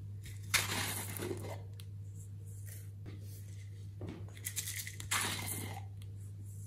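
Plastic novelty containers being handled and opened. A sharp plastic click about half a second in is followed by about a second of rustling, then a run of clicks and crackles as the contents are tipped out into a glass tray. A steady low hum runs underneath.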